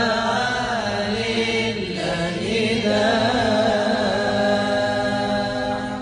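Nasheed singing: a long, wavering sung melody with vibrato over a steady low drone, with no clear words.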